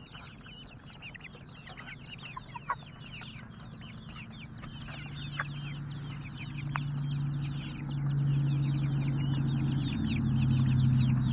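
A brood of young chicks peeping continuously, a dense chorus of short falling cheeps. A low steady hum grows louder from about halfway in.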